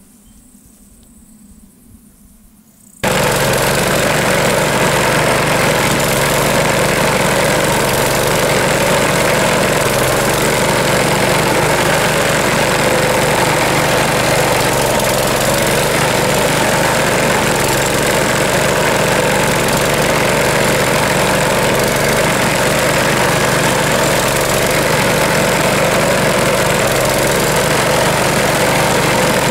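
A Rotakt walk-behind mower's small petrol engine running steadily at working speed while cutting tall grass. It comes in abruptly about three seconds in, after a few seconds of quiet.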